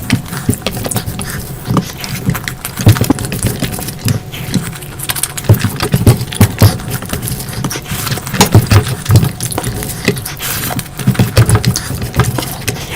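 Close-miked eating sounds: chewing and smacking of mouthfuls of food, a dense run of wet clicks and soft thumps.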